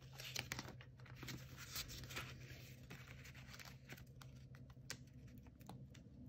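Faint rustling and light clicks of sticker sheets being handled and leafed through in a felt-covered sticker book, busiest in the first two seconds and sparser after.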